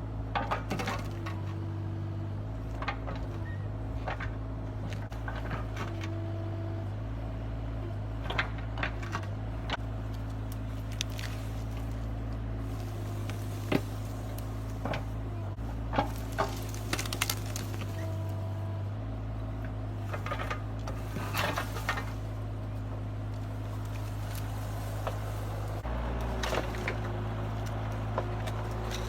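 Mini excavator's diesel engine running steadily, its note shifting up and down as the hydraulics take load. Scattered sharp cracks and snaps of wood and roots breaking come through it, several of them between about eight and twenty-two seconds in.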